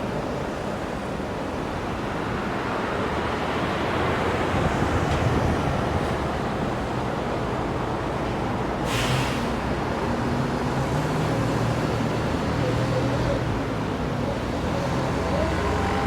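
Road traffic: a continuous wash of passing vehicles, with a short hiss about nine seconds in and a heavy vehicle's engine running low just after it.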